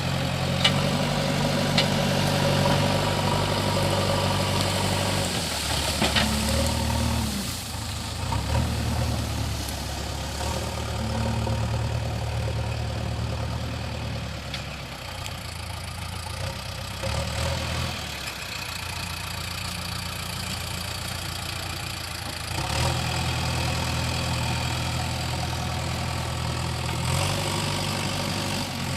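JCB 3DX backhoe loader's diesel engine running, its note rising and falling several times as the machine takes and eases off load, with a few sharp knocks along the way.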